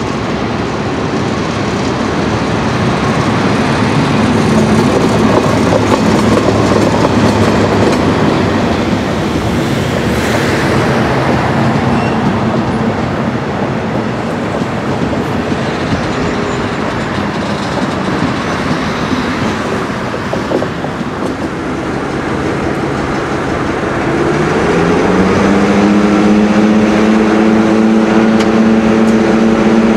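DB class 218 diesel locomotive hauling a rake of coaches past, its engine running under the clatter of the coach wheels on the rails. Near the end a class 346 shunting diesel's engine revs up and holds at a steady higher pitch.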